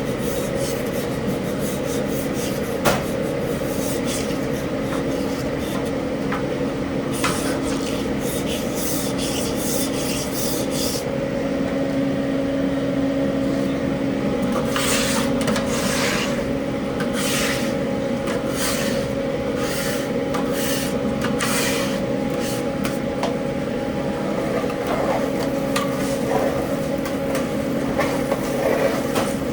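Commercial kitchen equipment running with a steady hum, with bouts of scraping and clatter from cooking work, heaviest about a quarter of the way in and again around the middle.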